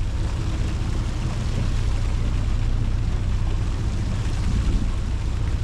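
A sportfishing boat's engine running with a steady low drone, under an even wash of wind and water noise.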